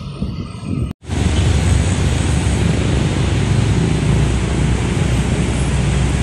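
Steady rumble and hiss of road traffic, cutting in after a brief break about a second in.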